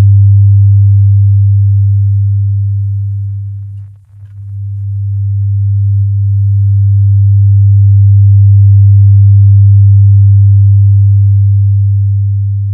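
Two pure sine test tones at 100 Hz and 100.1 Hz playing together as one low, steady hum. They beat at 0.1 Hz: the hum fades almost to nothing about four seconds in, slowly swells back to full loudness, and starts fading again near the end. The swells are constructive interference and the fade is destructive interference.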